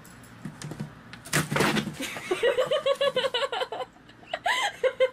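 A short scuffling noise about a second and a half in, then a person laughing in a quick run of short bursts, and a brief high rising-and-falling squeal near the end.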